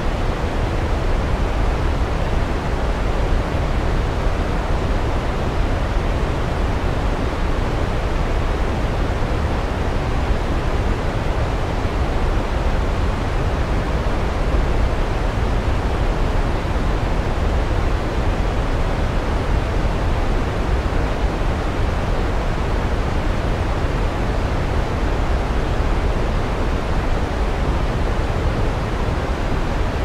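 Waterfall: a steady, even rush of falling water, heaviest in the low end.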